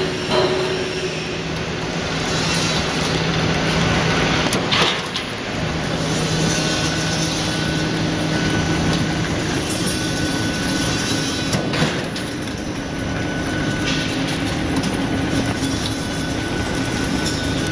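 Razor barbed wire machine running, with steel razor tape drawn through its straightening rollers: a steady mechanical rattle with a motor hum. Two sharp knocks come about five seconds in and again near twelve seconds.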